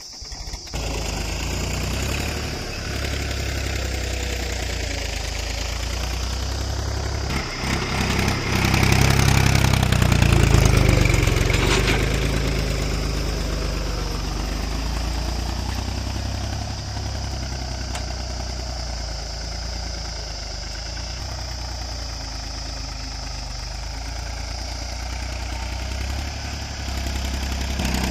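Mahindra 275 DI tractor's three-cylinder diesel engine running steadily under load while pulling a tined cultivator through dry soil. It grows louder for a few seconds about a third of the way in, then settles back.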